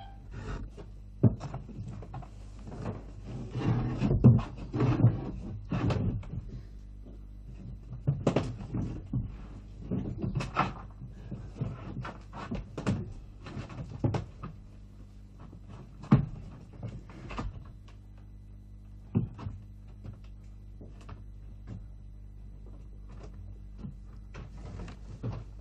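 Irregular knocks and clanks of a heavy door being worked, loudest about four to six seconds in and thinning out later, over a steady low hum.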